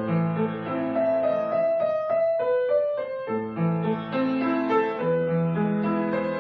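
Background piano music, a melody over a repeating bass line, with the bass dropping out for about a second midway.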